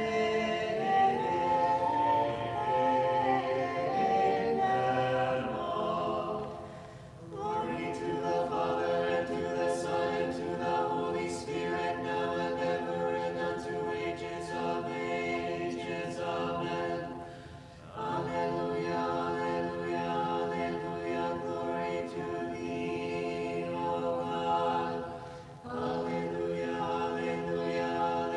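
Church choir singing a cappella in several voice parts, long held chords in phrases broken by short breaths three times.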